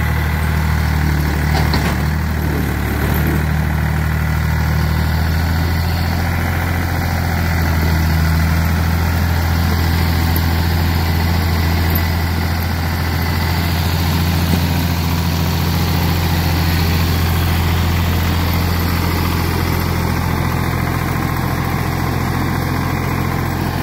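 Ford 3000 tractor's three-cylinder engine running steadily as the tractor drives, with a low, even engine note.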